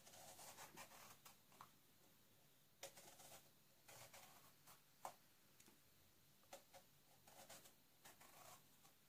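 Faint scraping of a knife peeling thin strips of skin from an eggplant, in short, irregular strokes.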